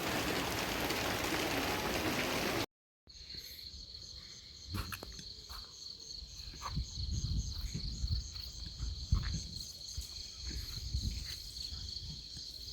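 A steady, even hiss, then after a sudden cut a steady high-pitched chorus of crickets and other insects, with scattered low thumps and clicks over it.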